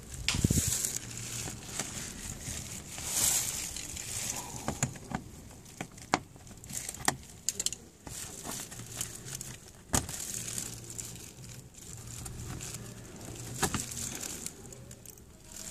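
Plastic push-in clips on a Mitsubishi Colt's plastic engine undertray being worked loose, with scattered sharp clicks amid rustling and handling noise.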